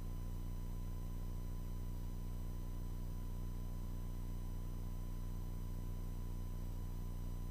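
Steady low drone of a Cirrus SR22's six-cylinder piston engine and propeller in level cruise, with a faint steady high whine over it.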